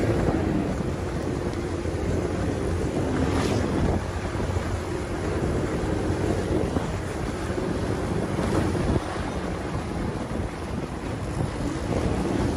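Wind rushing over the microphone of a moving motorcycle taxi, with the motorcycle's engine running underneath.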